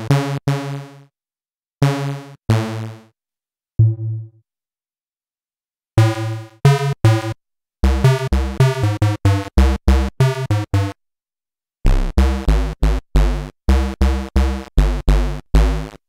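Behringer Vintage software synthesizer playing a preset: short, buzzy low notes that start sharply and die away quickly. A few scattered notes in the first six seconds are followed by a fast, even run of notes that stops suddenly at the end.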